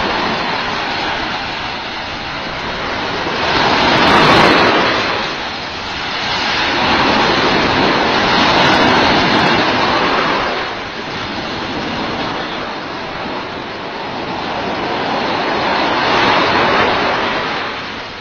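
Ocean surf: waves breaking and washing up the beach, a loud rushing noise that swells and fades in slow surges every few seconds.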